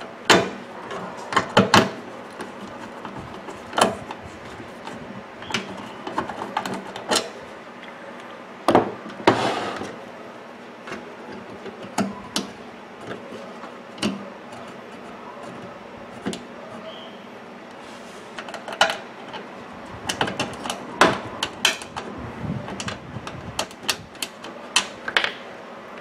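Screwdriver and screws on a microwave oven's sheet-metal cabinet: scattered sharp metallic clicks and knocks, several in quick runs, as the cabinet screws are driven and handled.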